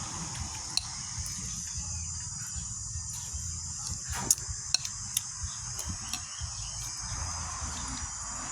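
Insects chirring steadily in a continuous high-pitched drone, with a scattering of short sharp clicks and clinks, the loudest about four seconds in.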